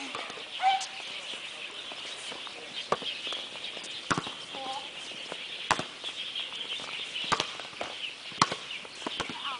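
Volleyball being played: sharp slaps of hands and forearms on the ball, about six of them a second or so apart, with a couple of short shouted calls between players, over a steady high hiss.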